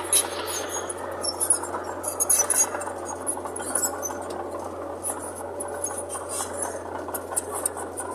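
Mitsubishi BD2J bulldozer working: the engine runs steadily under many sharp, irregular metallic clinks and clanks.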